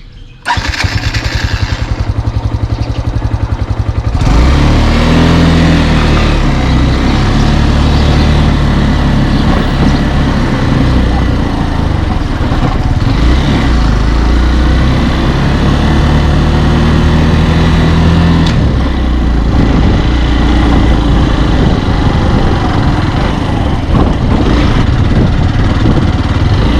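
Motor vehicle engine running as it pulls away and drives along. It gets louder about four seconds in, and its pitch shifts in steps as the speed changes.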